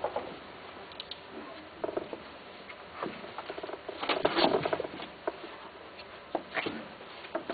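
Long-haired cat shifting about in a wire cage: claws scratching and tapping on the plastic floor tray in short, irregular bursts, with a busier flurry of scrabbling about four seconds in.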